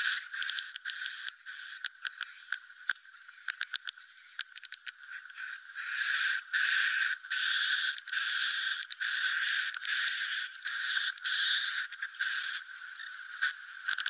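Swiftlet-house lure recording of edible-nest swiftlet roosting calls ('suara inap'), played through tweeters to draw swiftlets in to roost. Buzzy twittering chirps, then a couple of seconds of rapid dry clicking, then a string of half-second chirps with short gaps, each holding a steady high whistle.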